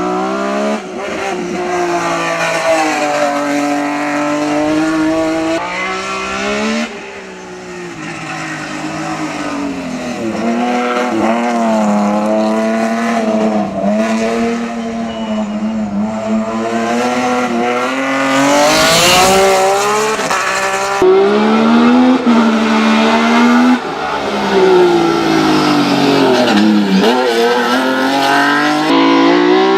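Racing car engine revving hard and rising and falling in pitch again and again as it accelerates and shifts through the gears. The sound jumps abruptly several times, and a brief harsh burst of noise comes about two-thirds of the way through.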